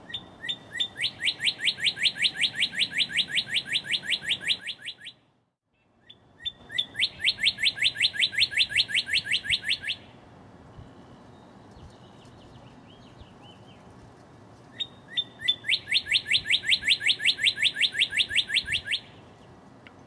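Male northern cardinal singing: three phrases of rapid, evenly repeated down-slurred whistles, each opening with a few slower notes, separated by pauses.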